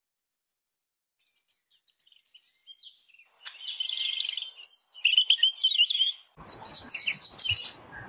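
Small songbirds singing: after a short silence, faint high chirps build into rapid, high-pitched warbled phrases. Near the end the sound changes abruptly to another recording of rapid high chirps over a background hiss.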